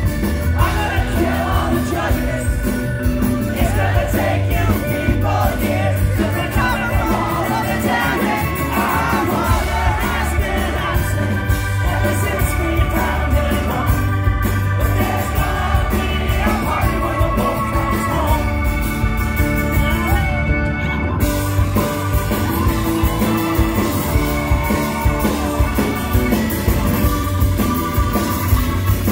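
A live rock band playing with a lead vocal: acoustic guitar, keyboard, drums and bass guitar, heard from among the audience.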